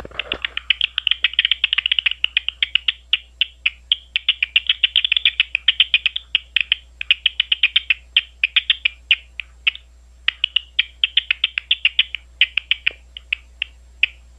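Big brown bat echolocation calls made audible through a bat detector: rapid trains of dry clicks, several a second, coming in bursts with short pauses and thinning out near the end.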